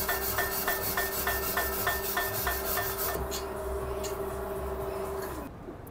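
A rusty steel wheel rim being scraped clean by hand while it sits on a tyre changer: a rhythmic rasping of about three strokes a second that turns into looser rubbing with a few sharp ticks. Under it runs a steady motor hum that stops near the end.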